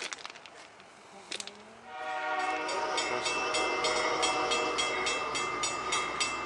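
Diesel locomotive horn on the approaching CP Holiday Train, sounding a long, steady chord that starts about two seconds in. Alongside it there is a rapid, even clanging about four times a second.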